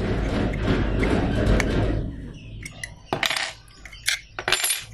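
Scraping and rustling as the cutting disc and its nut assembly are handled for about the first two seconds, then short metallic clinks of a steel spanner on the workbench, one about three seconds in and a sharper, ringing one near the end.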